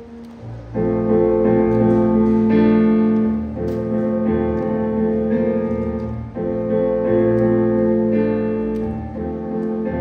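Keyboard playing sustained piano chords in an instrumental passage with no voice: a few soft notes, then a full chord with a low bass enters just under a second in, and the harmony changes about every three seconds.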